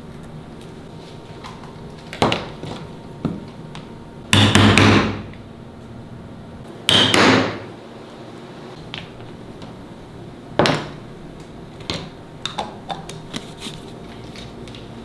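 Hammering on leather at a workbench: scattered single blows, two heavier spells of about a second each around four and seven seconds in, and lighter taps near the end.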